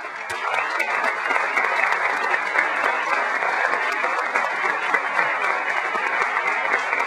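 Audience applauding: a dense patter of many hands clapping that builds over the first second and then holds steady.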